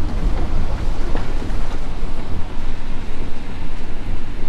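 Steady low rumble inside the cab of a moving vehicle: engine and tyre noise from driving on a rain-wet road.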